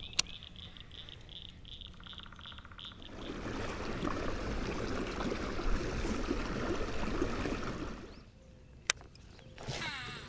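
A high pulsing animal call repeats about three to four times a second for the first three seconds, with one sharp click just after the start. Then water sloshes and splashes loudly against the pedal kayak for about five seconds, followed by a sharp click near the end.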